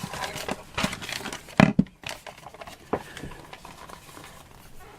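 Handling noise on a craft table: paper rustling, then a sharp knock about one and a half seconds in and a lighter one about three seconds in as a wooden breadboard piece is set in place.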